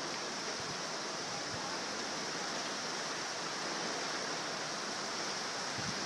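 Heavy rain pouring down in a storm: a steady, unbroken rush of falling water.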